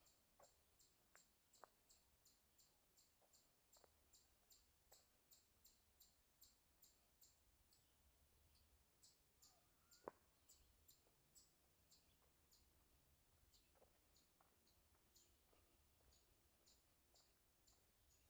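Very faint: a high chirp repeats evenly two or three times a second, with scattered soft clicks and one sharp snap about ten seconds in.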